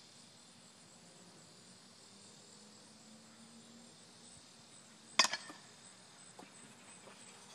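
A baseball bat hitting a tennis ball: one sharp crack about five seconds in, followed by a couple of quieter clicks. A faint steady insect buzz runs underneath.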